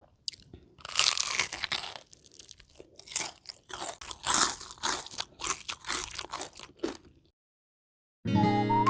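Close-miked bites and chewing of crispy battered deep-fried chicken: a series of loud, separate crunches, the longest about a second in. After a short silence, guitar music starts near the end.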